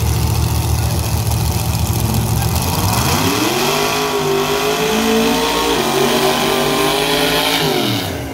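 Drag-racing donk car's engine rumbling low, then revving up about three seconds in and held at high revs while the rear tyres spin in a burnout, dropping back near the end.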